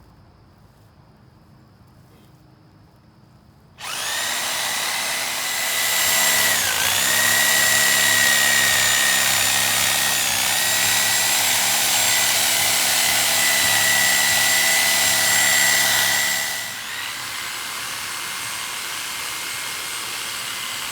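Corded DeWalt reciprocating saw cutting through a pine tree trunk. About four seconds in it starts with a loud, steady whine that sags in pitch twice as the blade loads up. It cuts off about four seconds before the end, leaving a lower steady hiss.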